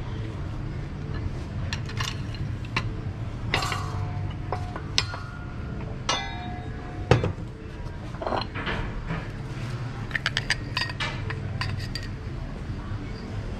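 Steel transmission clutch-pack parts clinking and clattering as they are lifted out of the clutch hub and set down, with scattered knocks and a ringing metal clang about six seconds in. A steady low hum runs underneath.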